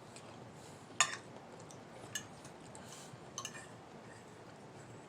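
Cutlery clinking against a dinner plate while eating: one sharp clink about a second in, then a few softer ones.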